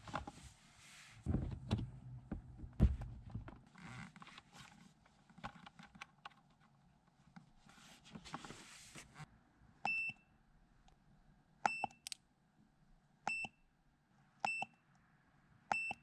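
Rustling, clicks and a few thumps as a scan tool's cable is handled and its connector pushed into the car's diagnostic port. Then five short high beeps from the AutoLink OBD-II scan tool, about a second and a half apart.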